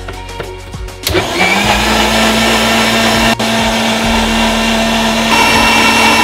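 Electric mixer-grinder (blender) motor switching on about a second in. It quickly winds up to a steady high-speed whir as it churns cultured cream and cold water into butter, and it briefly drops out once near the middle.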